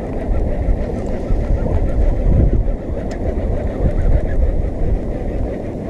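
Wind buffeting the microphone on an open boat: a dense low rumble that rises and falls in gusts.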